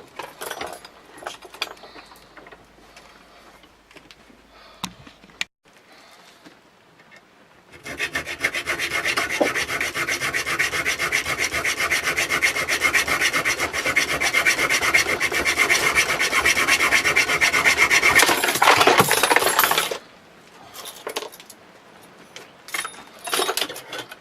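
Leatherman multi-tool's file cutting through the protruding end of a steel bolt in rapid, steady back-and-forth strokes. The filing starts about eight seconds in and stops about twelve seconds later, with light clicks of handling metal parts before and after.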